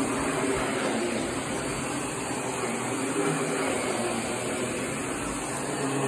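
Miele S8 Uniq canister vacuum cleaner running steadily, with its electric power head brushing a shag rug.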